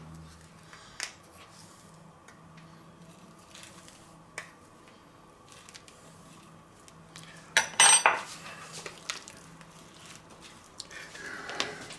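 A metal teaspoon clinking and scraping against a spice tin and a plastic tub as dried seasoning is spooned onto meat. There are a few light clicks, and one louder clatter about eight seconds in.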